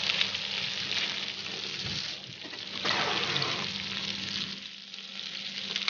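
Marinated chicken wings and sausages sizzling on a hot electric grill pan, a steady frying hiss that eases slightly now and then.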